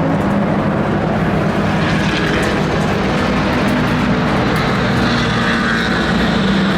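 An engine running steadily in a loud, even drone, with a low hum that shifts slightly in pitch about two thirds of the way through.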